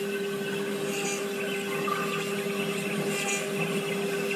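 Small CNC router spindle running at a steady pitch as its engraving bit carves a kernel turning on the rotary axis, with brief higher-pitched cutting bursts about every two seconds.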